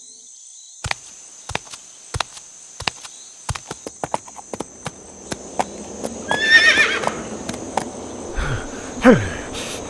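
A horse's hooves clip-clopping in uneven single knocks, starting about a second in, with a horse whinnying once about six seconds in.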